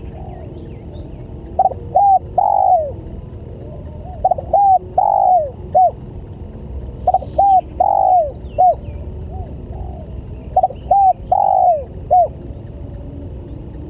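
Spotted dove (tekukur) cooing its song four times, about every three seconds. Each phrase has two short coos, a longer drawn-out coo and a short final coo. It is a lure call used to draw other spotted doves to sing.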